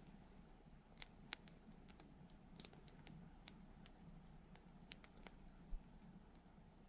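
Quiet wood campfire crackling: sharp single pops at uneven intervals, roughly one every half second to a second, over a faint steady low background.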